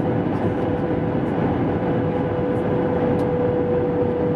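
Airbus A320 cabin noise on its approach: a steady rushing roar of engines and airflow heard from a seat over the wing, with a constant mid-pitched hum running through it.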